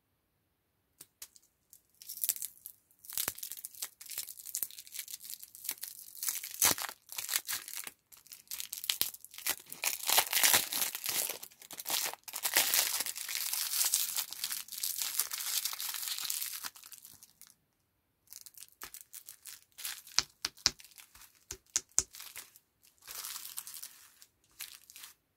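Thin plastic lollipop wrapper crinkling and tearing as it is pulled off the candy by hand, in busy stretches of rustle. After a short quiet gap about two-thirds of the way through come sparser, sharper crinkles.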